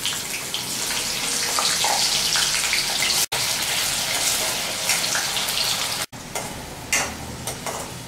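Potato pieces frying in hot ghee in an aluminium kadhai: a steady sizzle, broken by two brief dropouts, with a few sharp taps of the spatula against the pan about seven seconds in.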